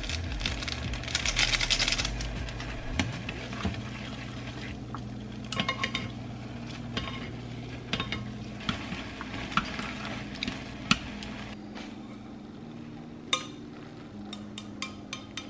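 Wooden chopsticks stirring instant noodles in a nonstick saucepan on an electric stovetop, with irregular clicks and taps against the pan and a burst of sizzling about a second in. Near the end there is a sharp knock as the pan is tipped over a bowl to pour out the noodles.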